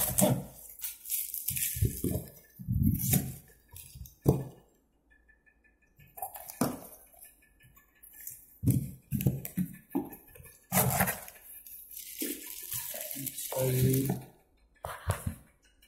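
Cardboard box and its plastic stretch wrap being torn open and handled: irregular rustling, scraping and crinkling, with a few sharp knocks, as the plastic-wrapped mixer grinder jars inside are uncovered.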